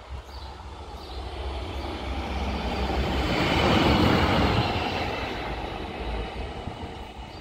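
Class E186 (Bombardier TRAXX) electric locomotive running light, with no wagons, past the listener. Its rolling noise builds, peaks about four seconds in, then fades as it moves away.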